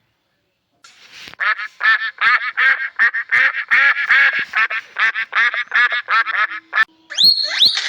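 A duck quacking in a rapid run of short calls, about four a second, for several seconds. Near the end it gives way to a different, higher-pitched animal call with quick rising sweeps.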